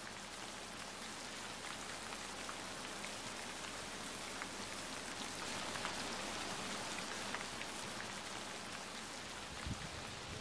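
Steady rain falling, a continuous hiss with scattered patters of individual drops. A few low knocks come near the end.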